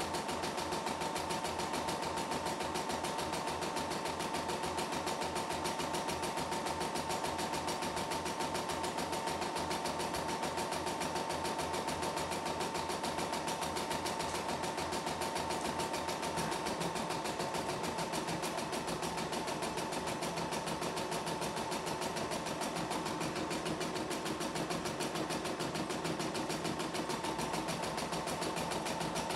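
CNY E960 computerized embroidery machine running steadily as it stitches a design in its hoop: a fast, even needle rhythm over a steady motor whine.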